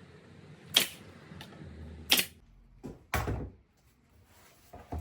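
Three sharp knocks a second or so apart, the last a heavier, duller thud.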